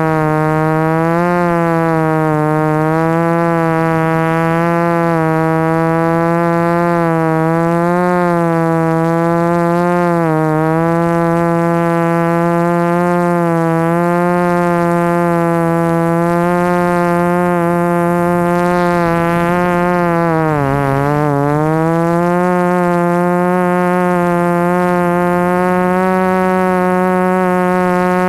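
Flip FPV quadcopter's brushless motors and propellers buzzing at close range, a steady whine whose pitch wavers gently with the throttle. About two-thirds of the way through the pitch dips sharply, then climbs back.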